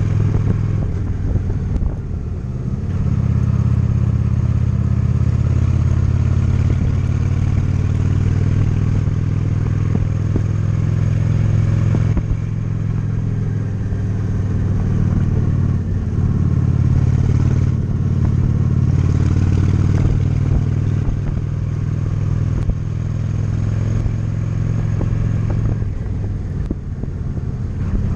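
Honda Shadow 750's V-twin engine running on the road, a steady, deep exhaust note that drops briefly several times and picks up again.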